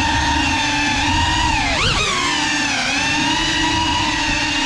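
GEPRC Cinelog 35 cinewhoop's motors and ducted propellers whining steadily. The pitch dips and rises with the throttle, with a quick sharp rise and fall about two seconds in.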